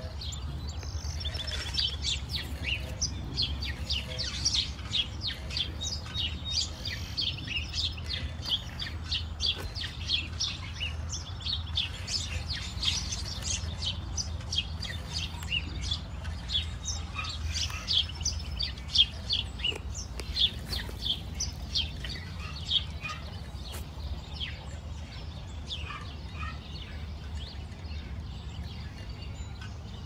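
Northern cardinals chirping: a dense run of short, sharp, high chip notes, several a second, thinning out after about 24 seconds. A low, steady rumble lies underneath.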